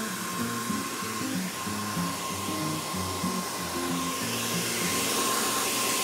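Handheld hair dryer blowing steadily, a rushing air noise with a thin high whine, growing louder in the second half as the nozzle comes nearer. Background music plays underneath.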